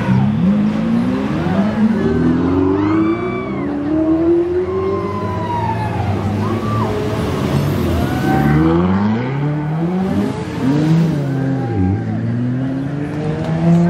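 Sports car engines revving and accelerating past one after another, their pitch climbing in several rising sweeps.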